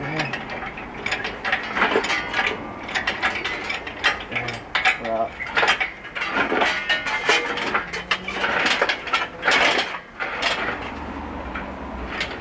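Engine hoist being jacked up to lift an engine out of the bay: irregular metallic clicks, clanks and rattles, several a second, with louder clusters now and then.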